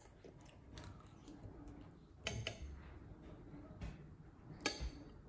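Metal spoons clinking and scraping against ceramic bowls of oatmeal, with a sharp clink about two seconds in and another near the end.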